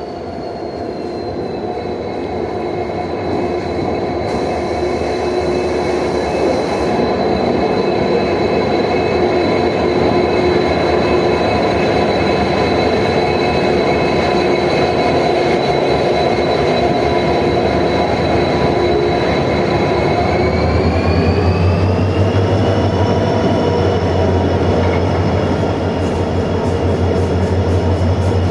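Passenger express train at a station, its locomotive giving a steady multi-toned whine over a rumble that grows louder over the first several seconds. About 21 s in the whine rises in pitch and a deep hum comes up beneath it.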